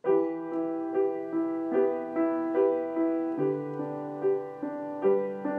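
Background piano music: a melody of separate notes struck at an even pace, about two a second.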